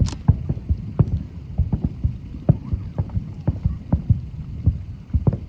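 Aerial fireworks shells bursting in an irregular run of deep booms, a few each second.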